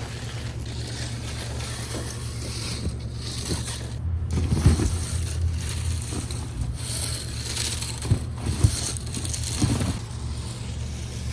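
Cat 308 excavator's diesel engine running steadily while crushed gravel crunches and scrapes under the bucket, with a few sharp knocks about four and a half, eight and nine and a half seconds in.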